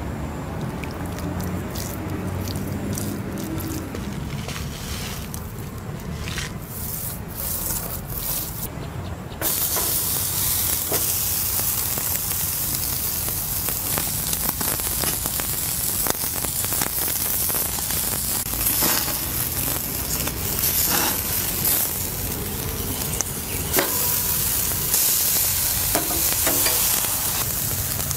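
A rack of ribs sizzling on a grill grate over a fire: a steady hiss with scattered crackles, starting suddenly about ten seconds in. Before that, quieter scattered clicks and taps over a low rumble.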